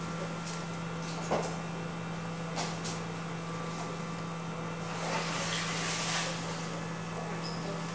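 Automatic dog food dispenser running with a steady hum, a couple of sharp clicks, and a brief rushing noise about five seconds in.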